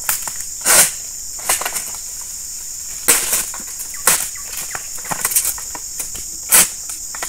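A long-handled harvesting sickle on a pole hacking at oil palm fronds high in the crown: a handful of irregular sharp cutting strokes with rustling of the fronds. A steady high drone of insects runs underneath.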